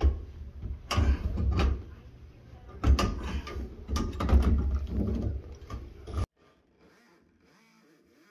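Irregular knocking, bumping and scraping from hands and a tool working at a drywall ceiling through an attic hatch, with heavy low rumble; the sound cuts off abruptly about six seconds in.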